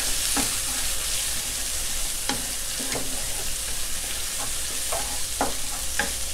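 Chicken and shrimp sizzling in oil in a stone-coated wok over high heat, with a steady hiss. A wooden spatula knocks and scrapes against the pan at irregular intervals, about once a second, as the food is stir-fried.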